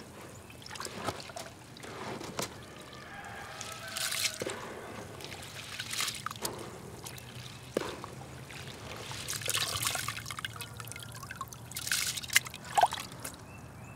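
A hand scooping soaked feed wheat out of water in a plastic tote and letting it fall back, the wet grain and water trickling and splashing in about four separate handfuls.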